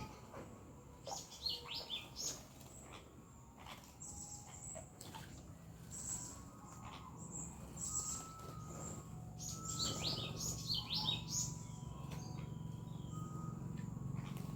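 Birds chirping in quick clusters of short, high notes, three flurries with gaps between them, over a low steady hum that grows louder in the second half.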